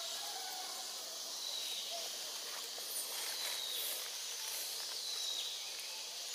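Tropical forest ambience: a steady high insect drone, with a short high note repeating about every second and a half.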